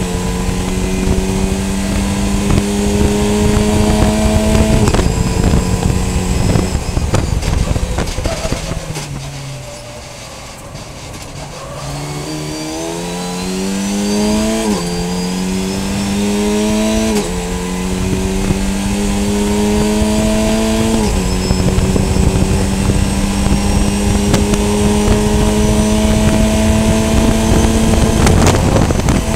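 Onboard engine note of a VW Fun Cup race car. It holds a steady high note, then lifts off and brakes with the pitch falling through downshifts. It then accelerates hard through three upshifts, each a rising note cut by a drop in pitch, and holds a steady high note at full throttle.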